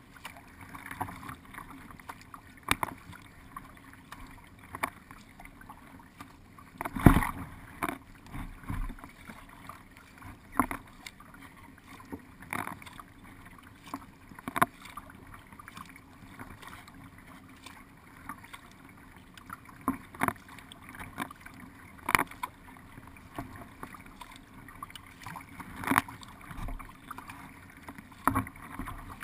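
Paddle strokes on a narrow racing boat, picked up through its deck: sharp knocks and splashes about every two seconds over a low hiss of water along the hull, with a gap of several seconds near the middle.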